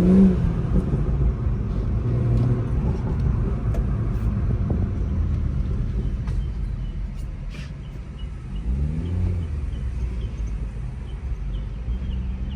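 Buick's engine revving up to a peak right at the start, then running on with a low rumble, and revving up again briefly about nine seconds in.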